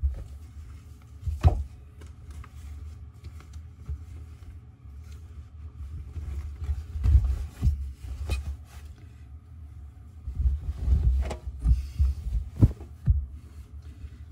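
Clothes being dropped and pushed into a front-loading washing machine drum, heard from inside the drum: irregular muffled thumps and rustling as each handful lands, with a few sharper knocks.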